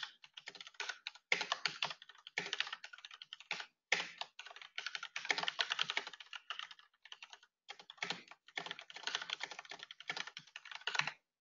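Typing on a computer keyboard: quick runs of key clicks broken by short pauses, stopping shortly before the end.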